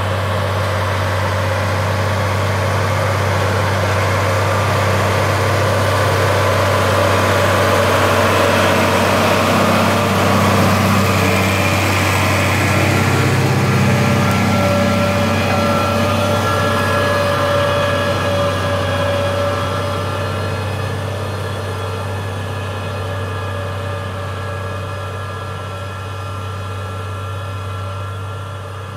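New Holland TS115 tractor's diesel engine running steadily under load while it pulls a subsoiler ripper through the soil. It grows louder as the tractor passes close about halfway through, then fades as it moves away.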